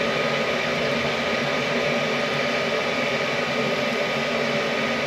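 Steady mechanical whir, like a fan or small running machine, with a faint thin tone and a low hum under it.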